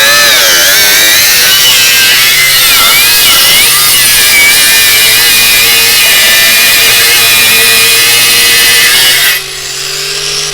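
Parkside Performance PWSAP 20-Li C3 brushless cordless angle grinder working under load, its motor pitch dipping and recovering as the disc bites. Near the end the load comes off and the motor runs free with a steadier, quieter tone.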